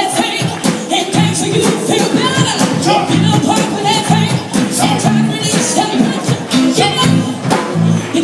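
Live band playing an upbeat song with a steady beat, bass line and singers.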